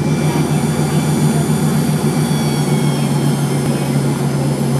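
Jet airliner's engines running, heard from inside the cabin: a steady low hum and thin high whining tones over a rushing noise as the plane rolls along the ground.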